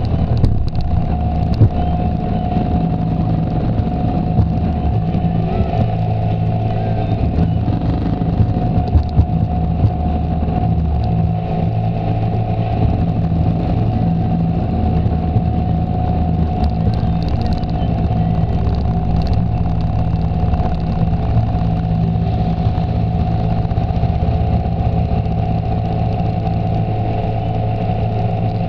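ATV engine running steadily, its pitch holding constant, with a few short knocks and rattles along the way.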